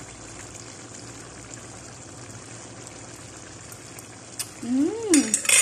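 Menudo simmering in a wok over a gas burner: a steady, even bubbling hiss. About five seconds in comes a short rising-and-falling hummed "mmm", then a few sharp metal clinks of a spoon against the wok.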